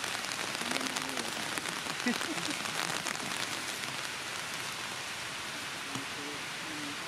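Steady rain falling, with a spell of louder, closer drop hits between about one and three seconds in.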